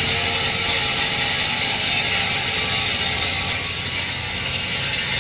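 Flux-cored arc welding with CO2 shielding gas: the welding arc gives a steady, dense crackle with a hiss.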